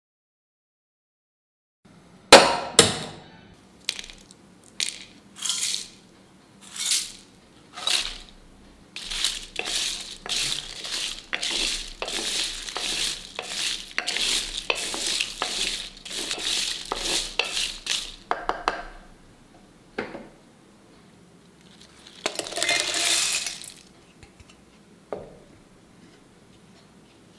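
Whole spices (cinnamon sticks, cloves, green cardamom) clattering and clinking against a metal pan as they are tipped in and stirred for dry roasting: first a string of separate sharp clatters, then a dense run of rattling and scraping for about nine seconds. Later comes a short burst of rattling noise lasting about two seconds, then a single click.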